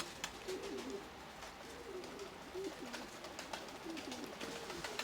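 Domestic Nikolaev pigeons cooing, several wavering coo phrases one after another, with scattered sharp ticks.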